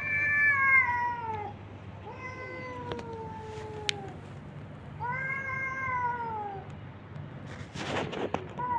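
A stray cat meowing: three long meows, each falling in pitch. A short noisy rustle comes near the end.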